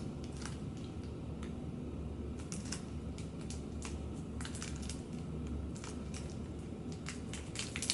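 A chocolate bar's wrapper being worked and pulled open by hand, giving faint, irregular crinkles and small clicks, more of them in the second half.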